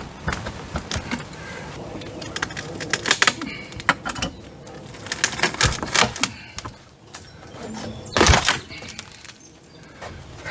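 Wooden siding boards being pried off a house wall with a bar: an irregular run of sharp cracks, creaks and knocks as the wood splits and the nails give, the loudest and longest crack about eight seconds in.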